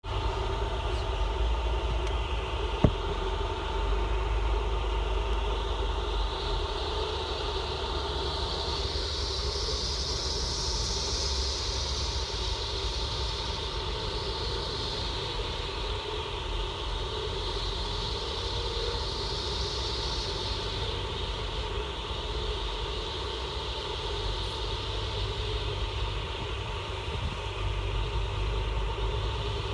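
Storm wind noise: a rushing hiss that swells and fades slowly with the gusts over a low rumble, with a faint steady tone throughout. A single sharp click comes about three seconds in.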